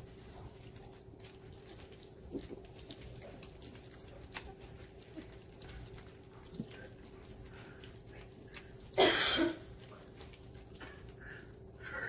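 Four-week-old golden retriever puppies eating from shallow metal feeding pans: faint lapping and chewing and light ticks of muzzles and paws on the metal, over a faint steady hum. About nine seconds in, one short, loud puppy yelp.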